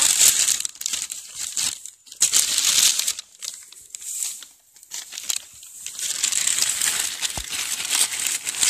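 Plastic bag crinkling and rustling as dry coir pith and soil are scooped by hand and poured into it. It comes in bursts, strongest in the first two seconds and again from about six seconds in, with a quieter stretch in between.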